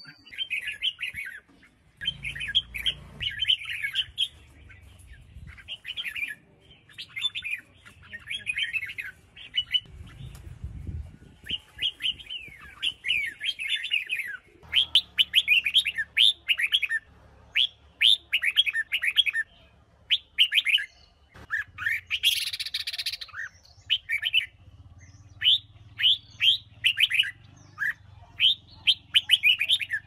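Female red-whiskered bulbul singing: quick, bright chirping phrases repeated over and over with short pauses, and a harsher, noisier burst about 22 seconds in. This is the kind of female song played to stir young males into singing.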